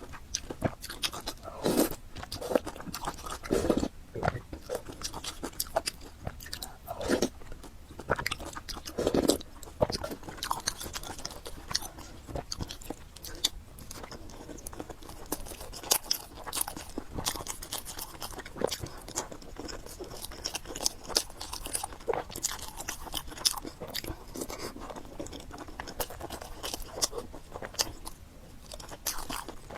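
Close-miked eating of spicy fried noodles with pork: chewing and biting with many irregular short mouth clicks. There are a few louder bites or slurps in the first half, and lighter chewing after.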